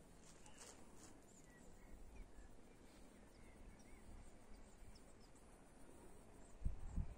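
Faint open-air ambience with a few faint, short, distant bird chirps in the first seconds. Near the end come loud, low thumps on the microphone.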